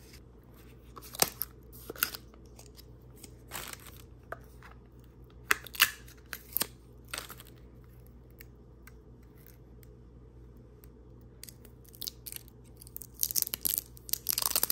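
Plastic packaging being handled and opened: scattered sharp crackles and clicks, a quieter stretch in the middle, then rapid crinkling near the end.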